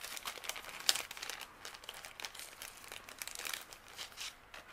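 Clear plastic packet crinkling and crackling in irregular bursts as it is handled and opened by hand.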